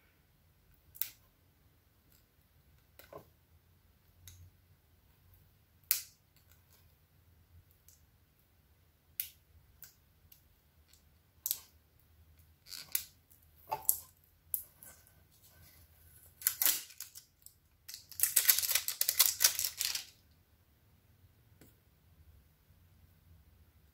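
Scattered light clicks and taps of a bullet lipstick and its small box being handled and opened, then a short rustle and about two seconds of crackling packaging about three-quarters of the way in.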